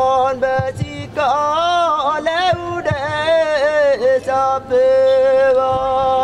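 A man's solo voice chanting a traditional Kedang welcome greeting for guests into a handheld microphone, the pitch sliding and bending from note to note, ending on a long held note.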